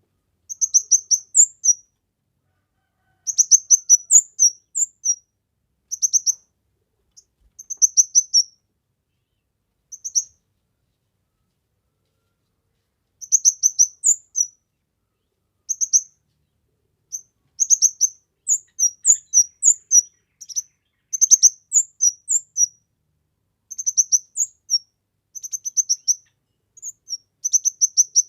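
A small songbird known as the kemade singing actively: bursts of rapid, high, thin chirps, each burst about a second long, separated by short pauses, with a longer pause of about three seconds near the middle.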